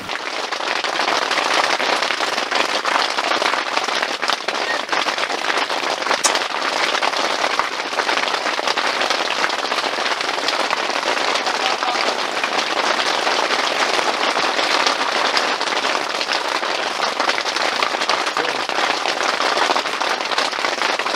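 Heavy rain falling on the fabric roof of a camping tent, heard from inside: a loud, dense, steady crackle of countless drop impacts that starts abruptly.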